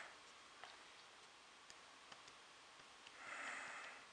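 Near silence: room tone with a few faint clicks, and a soft breath about three seconds in.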